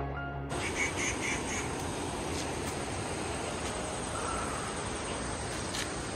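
Background music cuts off about half a second in. It gives way to a steady outdoor hiss with a few short, high calls, twice in quick pairs.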